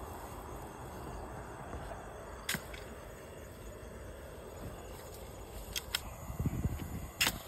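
Steady chirring of night insects, with a few sharp clicks and, toward the end, rustling of dry grass underfoot.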